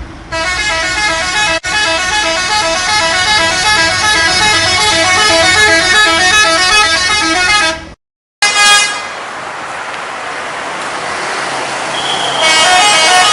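Bus 'telolet' multi-tone air horn playing a quick repeating tune of stepped notes for about eight seconds. It breaks off suddenly at an edit. Steady traffic noise follows, and another horn starts near the end.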